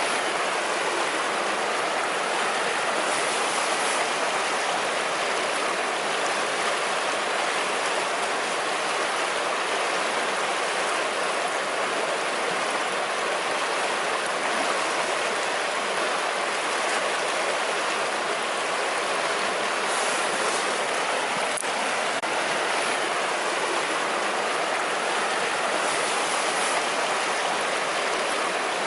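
Savinja river flowing: a steady, even rush of water.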